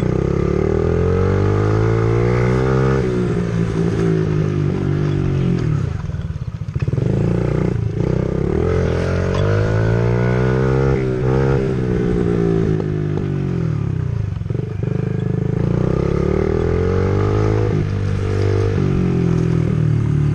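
Small dirt bike engine running under way, its pitch rising and falling over and over as the rider opens and closes the throttle.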